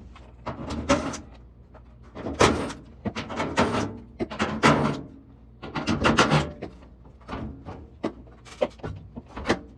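Dryer's sheet-metal back panel being unscrewed and pulled off: a string of irregular metal clanks and rattles, some sharp and loud, with short quiet gaps between them.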